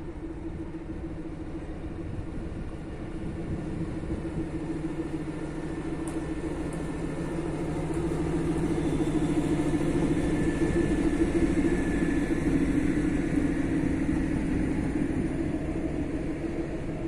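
Diesel locomotive engine running as the locomotive hauls passenger coaches past close by: a steady low rumble and hum that grows louder, peaking about two-thirds of the way in, then eases slightly.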